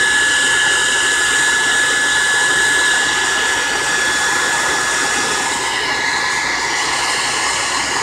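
Handheld hair dryer running steadily: a loud rush of blown air with a steady high whine, aimed at a canvas to melt wax crayons.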